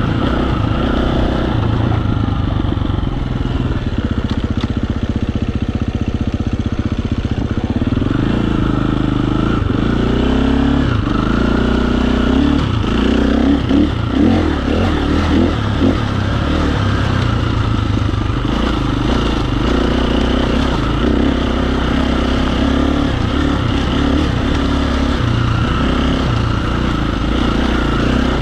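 KTM dual-sport dirt bike engine running while riding singletrack, rising and falling in pitch as the throttle is worked, with a run of quick revs in the middle.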